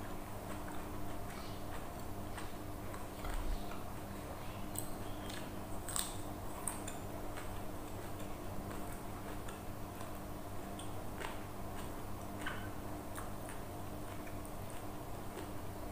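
Close-up mukbang eating sounds: chewing and small mouth clicks and smacks as someone eats rice and side dishes by hand, scattered irregularly over a steady low hum.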